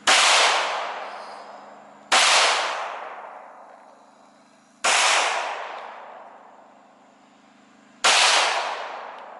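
Four single gunshots fired a few seconds apart, each followed by a long fading echo.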